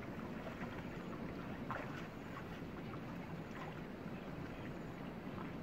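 Water sloshing and swirling as people wade waist-deep through a muddy canal, with a few small splashes.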